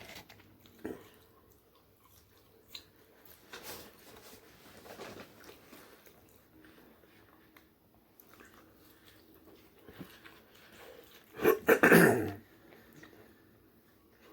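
Quiet eating sounds, soft chewing and small clicks, from a person eating fast-food chicken nuggets. Near the end comes one brief loud burst, about a second long.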